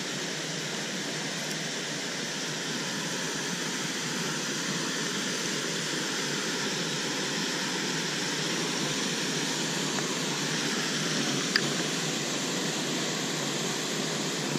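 Water pouring over a small stream dam into a pool, a steady, loud rush of falling water. One short click sounds near the end.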